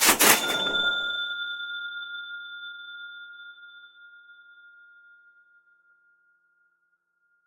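Cash register 'cha-ching': a short mechanical clatter, then a single bell ring that fades away slowly over several seconds.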